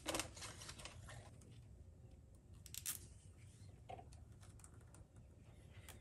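Light clicks and rattles of hands handling wires and plastic connectors at an under-hood fuse block: a quick cluster of clicks at the start, a second cluster near the middle, and a faint tap about a second later.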